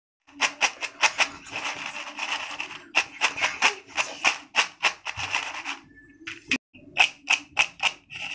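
Crisp fried nendran banana chips rattling and clicking against a glass bowl and a paper plate as they are handled, in quick crackling bursts, with a steady low hum underneath.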